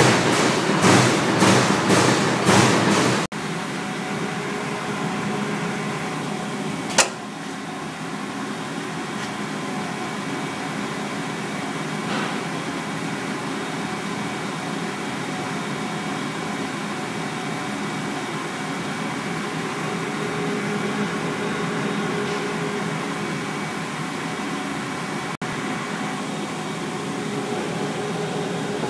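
Amada CNC turret punch press running: a quick, evenly repeating series of strokes for about three seconds, then a steady machine hum with a single sharp click a few seconds later.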